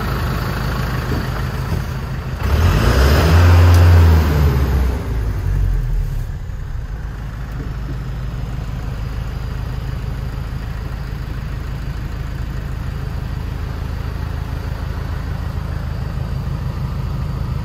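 MAN LE 8.155 truck's 155 bhp turbo diesel engine idling, revved once about two seconds in, the pitch rising and falling back over a few seconds before it settles to a steady idle.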